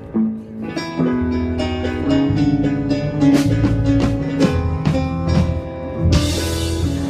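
A live band playing a slow blues instrumental passage, with guitar over bass and drums. A cymbal crash comes about six seconds in.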